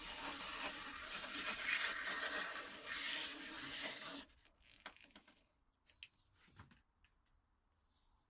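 120-grit sandpaper rubbed by hand over a wooden bowsaw handle, a steady dry rubbing hiss that cuts off suddenly about halfway through. A few faint light taps follow.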